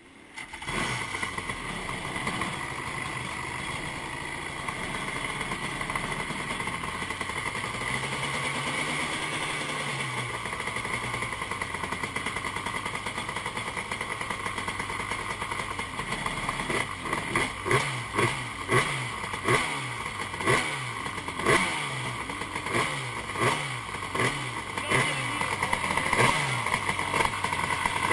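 A waterlogged jet ski's engine, drained of water and with its fuel system flushed after sinking, catching just under a second in and running steadily. From about halfway on, its throttle is blipped over and over, about one rev every three-quarters of a second.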